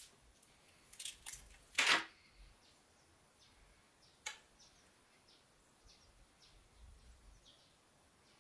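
Protective film being peeled off a small acrylic lens: a few sharp clicks, then a short rustle just before two seconds in, the loudest sound. One more click a little after four seconds, then faint light scratches.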